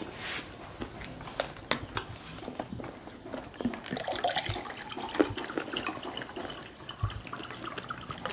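Juice poured from a plastic jug into a drinking glass, the pouring starting about three and a half seconds in, with scattered sharp clicks and taps of handling.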